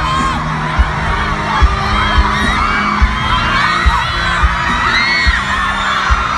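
A crowd of fans screaming and cheering over music with a slow, steady thumping bass beat.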